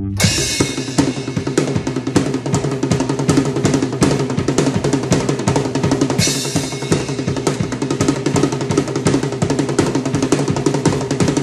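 Drum kit played fast and wildly: a near-continuous flurry of snare, tom and bass-drum hits, with cymbal crashes at the start and again about six seconds in.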